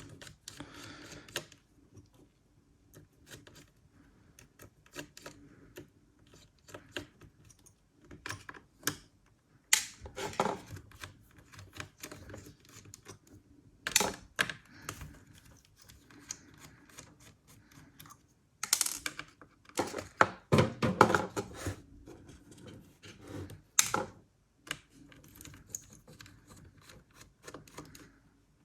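Small screwdriver working the screws of a laptop's heatsink and fan assembly: irregular light clicks and taps of the driver and screws against metal and plastic, with a few louder clusters of clatter.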